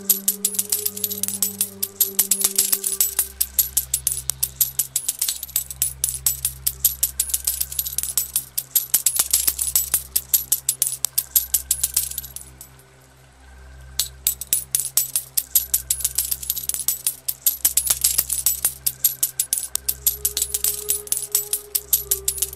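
A continuous shower of coins clinking and tumbling, a rapid stream of sharp metallic clicks, over slow music with sustained low notes. The clinking stops for about a second and a half just past the middle, then starts again.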